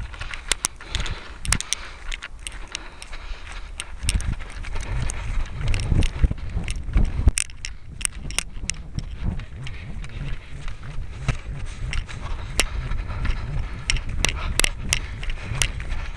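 Wind buffeting the microphone in an irregular low rumble that grows stronger a few seconds in, with many scattered sharp clicks and rustles throughout.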